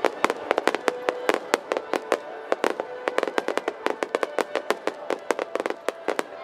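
Fireworks going off in a rapid, irregular run of sharp pops and cracks, several a second, over music with long held notes.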